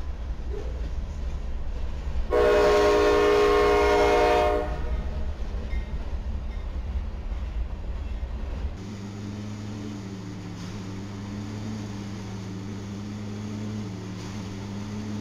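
Freight train rolling past with a low rumble; about two seconds in, a locomotive air horn sounds one long blast of about two seconds. Partway through, the sound changes abruptly to the steady hum of a track tamping machine running, with a slightly wavering tone.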